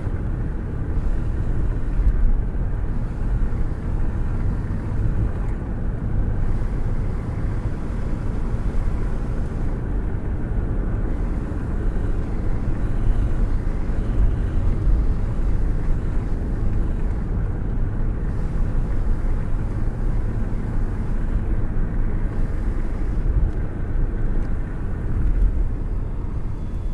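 Wind buffeting at the open window of a cruising car, with a hand held out into the airstream, over a steady low rumble of road and engine noise. The gusty rumble shifts irregularly without letting up.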